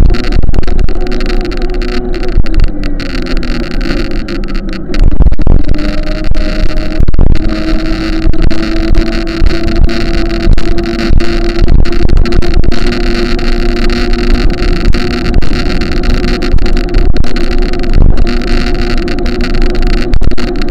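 An engine running under way with wind buffeting the microphone; its pitch falls a few seconds in, then climbs again and holds steady.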